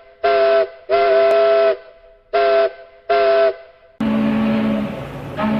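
A ship's whistle sounding a chord of several notes in four blasts: short, long, short, short. About four seconds in, it cuts suddenly to a deeper steady tone over a rushing noise.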